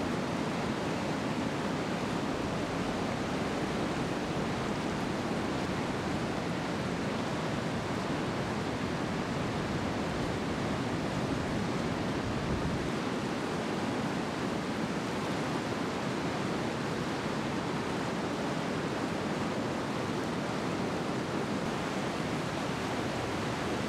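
Heavy ocean surf and rushing shallow water, a steady even rush with no breaks; the deepest part of the sound changes slightly about halfway through.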